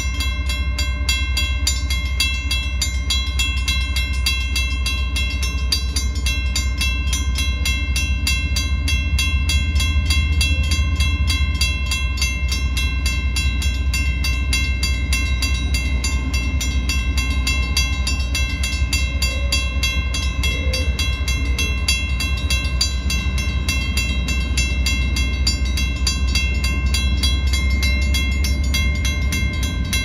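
Railroad grade-crossing bell ringing continuously and rapidly while the crossing signals are active, over the low, steady rumble of approaching diesel locomotives, a GE AC44C6M and ET44AC, hauling an empty coal train.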